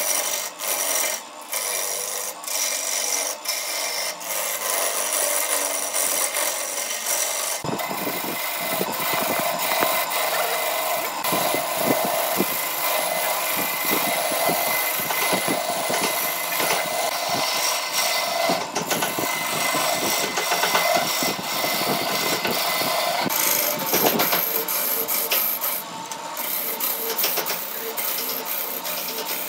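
Turning gouge cutting into a wood blank spinning on a wood lathe: a steady scraping, shaving sound as the tool peels off chips. The sound grows fuller about eight seconds in.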